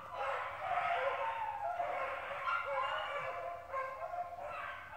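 A pack of rabbit hounds baying continuously in overlapping voices as they run a rabbit's trail.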